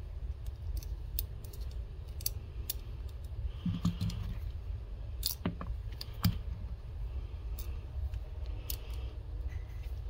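Scattered small metallic clicks and taps as a folding knife's metal handle, a screwdriver and small screws are handled during reassembly, a few sharper clicks around the middle, over a steady low rumble.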